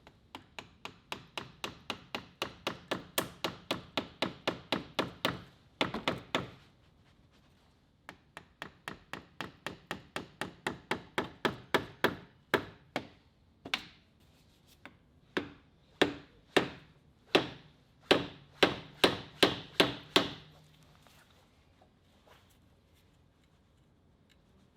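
Rapid hammer blows on the Subaru's front suspension, about four a second, in two fast runs and then a slower, uneven series. Each blow is sharp with a short ring.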